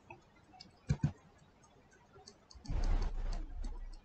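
Two sharp clicks close together about a second in, then about a second of low rustling near the end.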